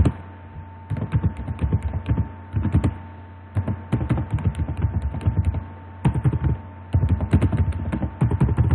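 Computer keyboard typing in quick bursts of keystrokes with short pauses between them, over a faint steady electrical hum.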